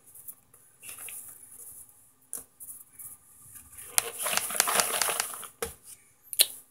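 Hard microwaved cornstarch chunks rustling and clicking against each other in a bowl as a hand stirs through them, with a louder stretch of dense rattling a little after the middle.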